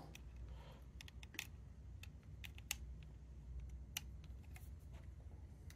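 A few faint, scattered clicks and taps from handling a small plastic travel router and plugging its USB power cable in, over a low steady hum.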